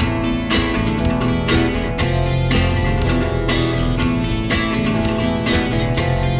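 A band's song playing without vocals: strummed guitar over a sustained bass line, with a steady beat about once a second.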